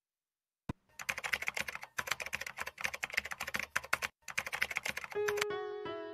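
Typing on a computer keyboard: a single key click, then a fast run of key clicks with two brief pauses, stopping about five seconds in.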